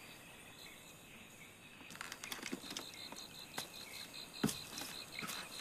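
Faint evening insects chirping, a rapid even high chirp that comes in about two seconds in, with a few soft footsteps knocking on a wooden plank.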